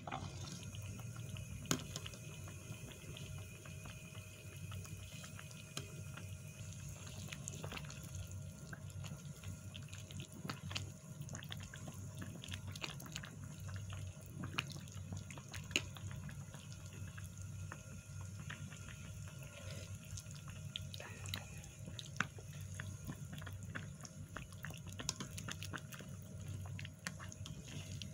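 Fish and vegetable soup simmering in a pot, with a dense patter of small pops and drips as a ladle scoops and pours the broth, and a few sharper clinks. A low steady hum runs underneath.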